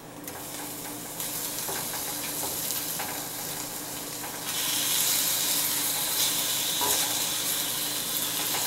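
Homemade caseless chicken sausage links sizzling in a hot enameled cast-iron skillet as they are turned over. The sizzle grows louder about four and a half seconds in.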